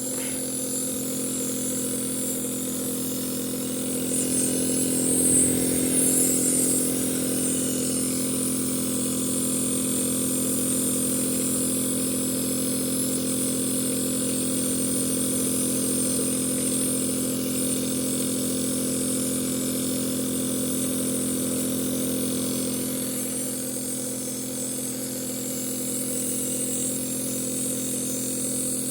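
A steady motor drone: an even hum with a high hiss over it, a little louder about four to seven seconds in.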